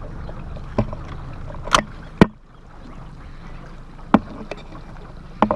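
Small boat sitting on the water with a low, steady motor hum that dips briefly a little past two seconds in, and several sharp knocks on the boat scattered through it.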